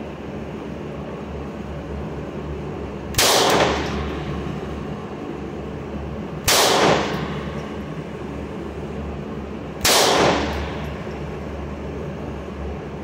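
Three single shots from a semi-automatic pistol, about three seconds apart, each echoing briefly off the walls of an indoor shooting range.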